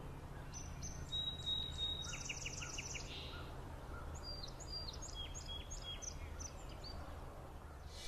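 Small songbirds singing: high repeated chirps, a quick trill of about eight notes between two and three seconds in, then another run of chirps, over a steady low rumble.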